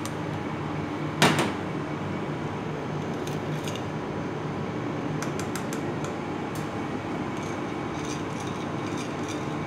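Steady hum of kitchen ventilation, with one sharp clink of a metal spoon against crockery about a second in and a few faint light clicks later.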